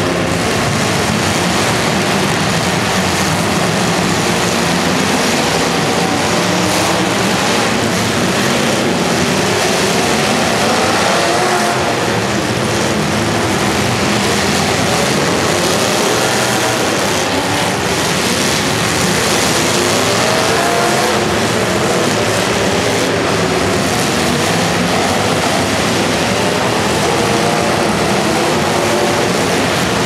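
Several demolition derby cars' engines revving and running at once, a loud, continuous din with pitches that rise and fall as the drivers accelerate, echoing in an indoor arena. Now and then a dull crunch comes as the cars ram each other.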